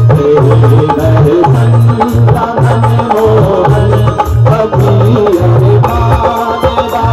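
Live devotional bhajan music: a dholak drum keeps a steady beat of about two strokes a second under a melody played on harmonium and keyboard.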